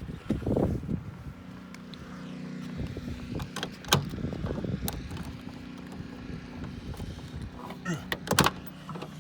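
Clicks and clunks of a vehicle's lock and door being worked, over a steady low hum.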